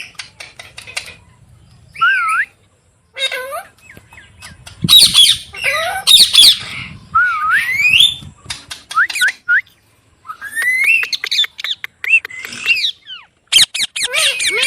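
Parrot calling: a series of short squawks and whistled calls that swoop up and down in pitch, mixed with runs of rapid clicking.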